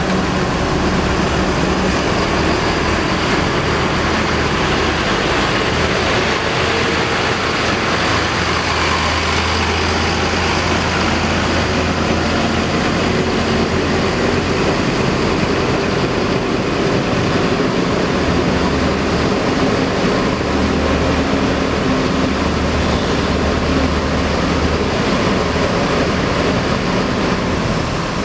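Diesel engine of a large tour coach running, a steady low drone that swells and eases twice.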